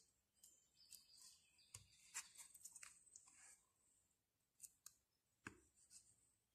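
Near silence, with faint scattered clicks and scrapes of a metal fork working wet paint on a paper plate and on paper.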